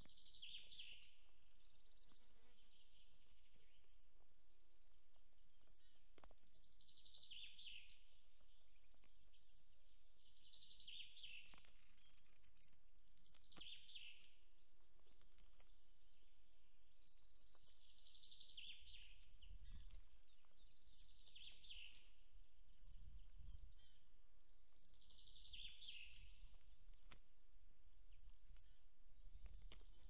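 A small songbird singing the same short phrase over and over, about every three seconds, over faint steady hiss, with a few low rumbles in the second half.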